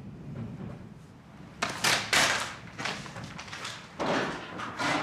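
A run of about six heavy crashing blows starting about one and a half seconds in, each a harsh bang that dies away quickly.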